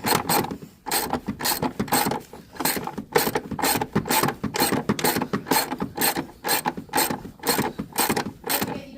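Socket ratchet wrench clicking in quick back-and-forth strokes, several clicks a second, as a 10mm bolt is turned with a socket on an extension.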